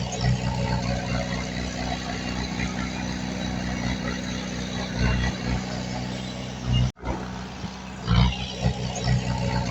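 Diesel engine of heavy earthmoving machinery running steadily, with some louder low surges. The sound cuts out for an instant about seven seconds in.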